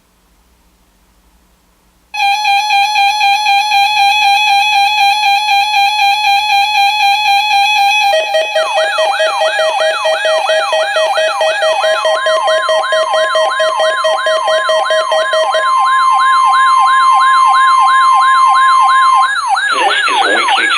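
Weather alert radio alarm tones, several layered: a steady electronic beep pulsing about twice a second starts about two seconds in. About six seconds later a lower steady tone and a fast, repeating rising warble like a siren join it, then a higher steady tone. The steady tones stop near the end as an announcer's voice comes in over the continuing warble.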